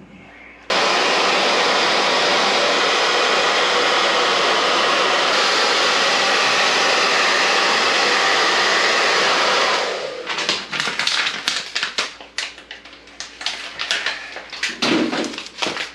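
Handheld hot-air blower running steadily for about nine seconds, switched on just under a second in and cut off abruptly. After it stops, a run of small irregular clicks and rustles.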